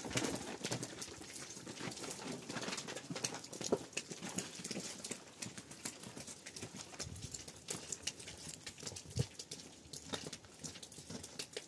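Rain falling, heard as a dense, irregular patter of drops and drips ticking close by.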